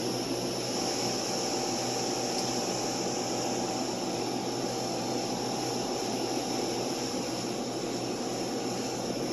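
Steady background noise: an even hiss with a faint steady hum, like a fan or air conditioner running in the room.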